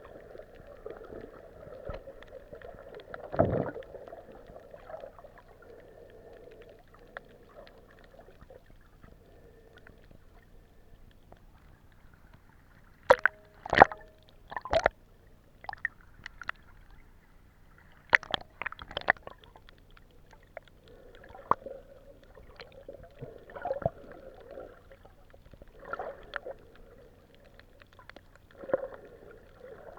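Muffled underwater sound recorded on a hand-held camera under the sea: a steady water hiss, with a run of sharp clicks near the middle and gurgling bursts every two or three seconds toward the end.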